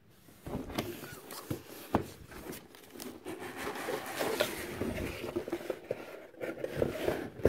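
Cardboard box being opened by hand: flaps scraping and rustling, with a few sharp clicks and knocks.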